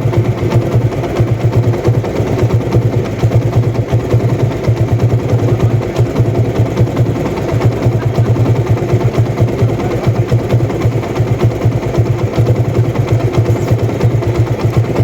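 TVS Apache RTR 160's single-cylinder engine idling steadily with a fast, even beat. The engine has a newly fitted timing-chain tensioner, and the owner finds the tick-tick noise of the old tensioner no longer there.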